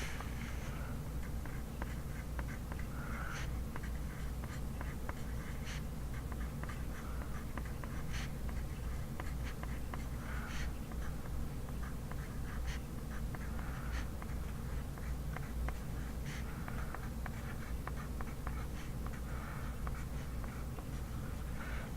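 Pencil writing on paper: scratchy strokes and small taps, over a steady low hum, with a soft short sound recurring every two to three seconds.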